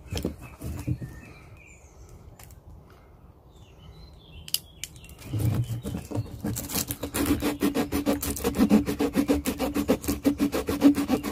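The saw blade of a Leatherman Signal multitool cutting a dry hazel stick: a few handling clicks, then from about five seconds in a steady run of quick back-and-forth rasping saw strokes.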